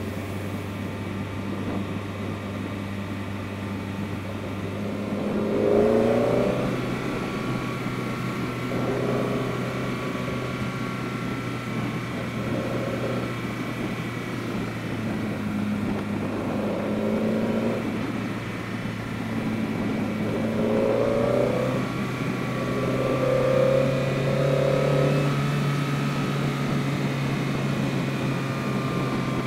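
BMW E30 320is's S14 four-cylinder engine, fitted with Schrick cams, a carbon airbox and an Evo2 muffler, running at road speed over a steady haze of road noise. Several times the engine note climbs briefly under throttle, most strongly about six seconds in and again later on.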